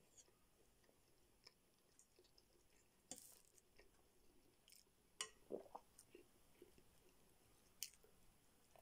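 Faint close-miked eating sounds: soft chewing and mouth noises over shawarma and spaghetti, with a few sharp clicks and taps as a fork works in the bowl.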